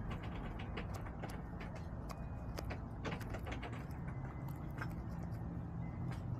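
Chickens pecking: a run of sharp, irregular taps and clicks over a steady low rumble.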